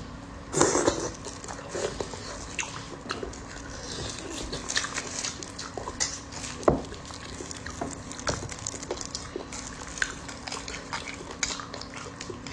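Close wet eating sounds of beef bone marrow being sucked and slurped from the bone, with mouth smacks and many short clicks, a louder slurp about half a second in and another about two-thirds of the way through.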